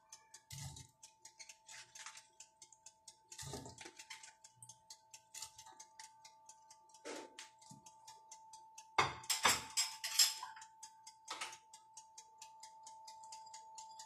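Cauliflower florets and dishes knocking into a stainless steel saucepan, with a few scattered knocks and a cluster of louder clatters about nine to ten and a half seconds in. Under them runs a faint fast ticking, about four a second, and a steady faint hum.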